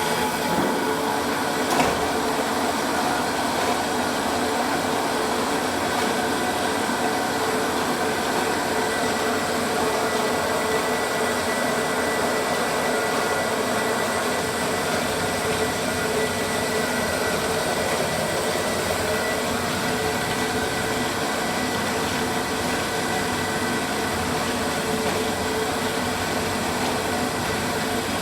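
TChP-6 semi-automatic frame-saw sharpening machine running steadily, a continuous mechanical whir with a single light tap about two seconds in.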